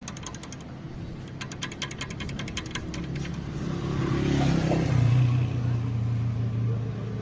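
Toyota Corolla driving, with a rapid ticking or scraping at about seven clicks a second in the first three seconds. This is the brake pad noise when driving. The engine and road hum then grows louder and steadier.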